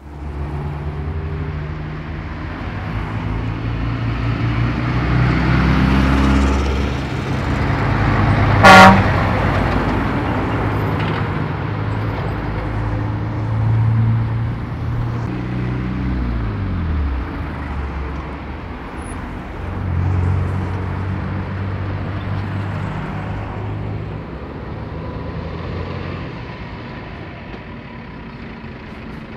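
Road traffic with lorries and cars passing, their engines running. One short, loud vehicle horn blast about nine seconds in, and an engine's pitch falling as it slows about two-thirds of the way through.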